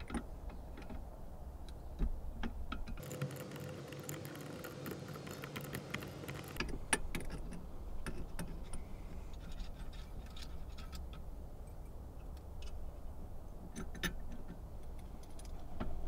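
Scattered light metallic clicks and taps as an adjustable wrench works the collar nut of a Console Vault lock on the safe's steel lid, loosening it so the lock can come out. About three seconds in, a faint hiss with a low hum runs for a few seconds.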